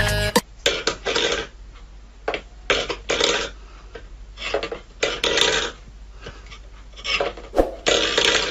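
Stainless-steel pet bowl being pushed by a cat's paw, scraping and knocking on a wooden floor in a series of short bursts.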